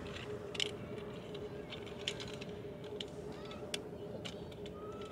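Irregular sharp clicks and rattles from a gravel bike being ridden, over a steady low hum.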